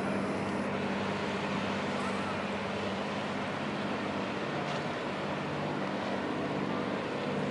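Fishing boat's engine running steadily as it motors out of the lock chamber: a low, even drone over the churning of its prop wash.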